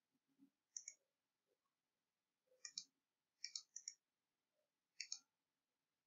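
Computer mouse buttons clicking: about five short, sharp clicks, most in quick press-and-release pairs, spread over a few seconds against near silence. They come as a right-click context menu is opened and Paste is chosen.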